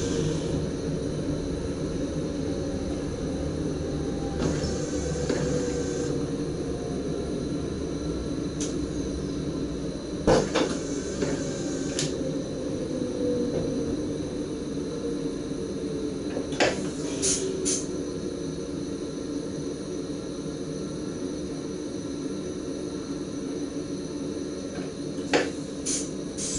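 Cab interior of an NS SGM Sprinter electric multiple unit on the move: a steady hum of motors and running gear with a tone that slowly falls in pitch around the middle. Sharp clacks and rattles break in about ten seconds in, in a quick cluster around seventeen seconds, and twice near the end.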